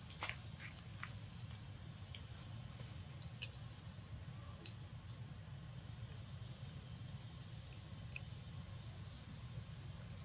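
Steady high-pitched insect drone, two pitches held throughout, over a low background rumble. A few small clicks come in the first second, and one sharp click comes about halfway through.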